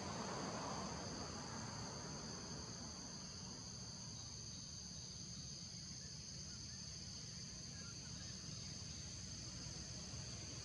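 Steady insect chorus in tropical forest: a continuous high-pitched drone on two close pitches, over a low background rumble.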